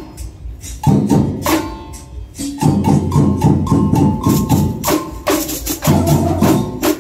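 Samba batería (percussion section) playing: sharp tamborim and hand-drum strikes in a fast rhythm, coming in fully about a second in, with a low bass-drum pulse joining about two and a half seconds in.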